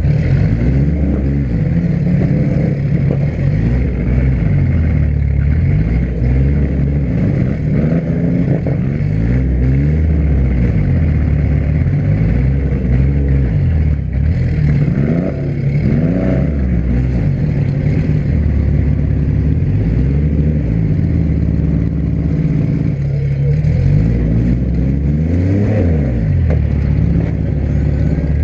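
Demolition derby car engines running loud, revved up and down again and again, with pitch rising and falling every few seconds over a steady engine drone.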